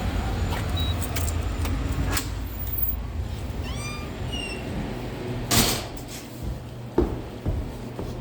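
A dog whining in a few short, high, wavering cries about four seconds in, amid the clatter of a door being opened and keys, with a louder brief noisy scrape just after the middle and a couple of knocks near the end.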